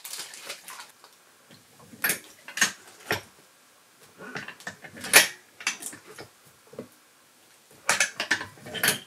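Metal clicks and clanks of a hand-lever button badge press being loaded and its handle pulled down, a string of separate sharp knocks with the loudest a little past halfway.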